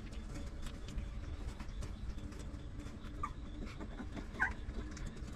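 Newborn puppies making two short, high squeaks, about three seconds in and again a second later, over a low steady background noise.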